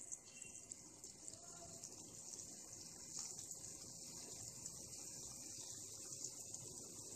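Banana-and-potato kofta balls deep-frying in hot oil: a faint, steady sizzling hiss that grows a little louder about three seconds in as more balls go into the oil.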